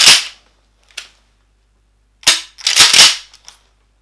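Pump-action shotgun being dry-fired and worked: sharp metallic clacks and clicks, the loudest right at the start. A little after two seconds in comes a sharp click, then a two-part clatter of the pump being racked back and forward.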